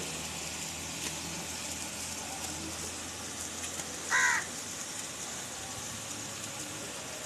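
A crow caws once, briefly, about four seconds in, over a steady low background hiss.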